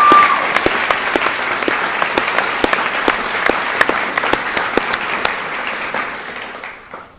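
Audience applauding, many hands clapping at once, with a short high cheer right at the start; the clapping dies away near the end.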